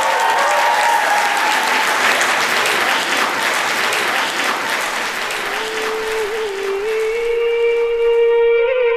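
Audience applauding. About halfway through, a single held musical tone comes in beneath the clapping. Near the end the applause cuts off suddenly, leaving the tone sounding alone.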